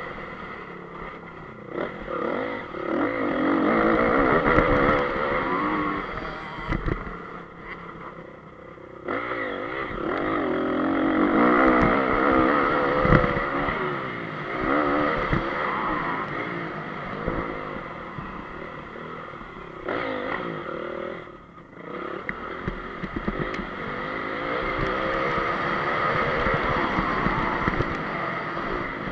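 Single-cylinder four-stroke engine of a 2014 Honda CRF250 motocross bike at race pace, revving up and down as the throttle is opened and shut, its pitch rising and falling again and again. It drops away briefly twice when the throttle is closed.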